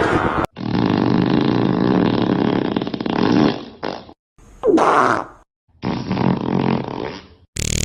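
A pooping-and-farting sound effect: a long fart of about three seconds, then several shorter ones with brief gaps between them. One of them slides down in pitch about five seconds in.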